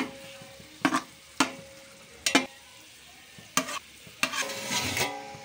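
Steel slotted spoon clinking against a steel cooking pot and bowl as fried chicken pieces are scooped out: about six sharp clinks, the first with a short ring, and a rough scrape near the end.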